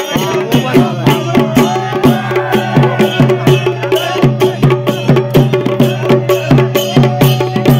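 Indian folk music with a fast, even hand-drum beat over a steady low drone.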